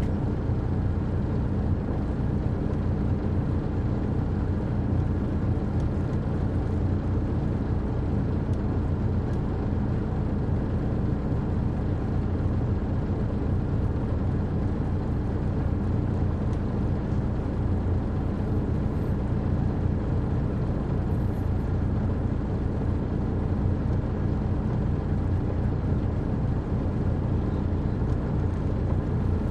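Detroit Diesel Series 60 inline-six diesel of an MCI D4000 coach running at a steady speed, heard from the rear seats inside the bus, with no revving or shifting.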